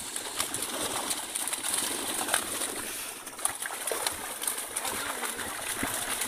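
Water splashing and fish thrashing in the shallows as a seine net is hauled onto a riverbank, many short splashes over a steady wash, with a bird cooing in the background.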